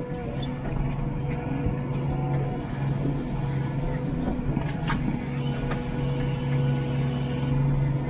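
New Holland T7 tractor's diesel engine running steadily while pulling a five-furrow plough, heard from inside the cab, with a couple of brief clicks.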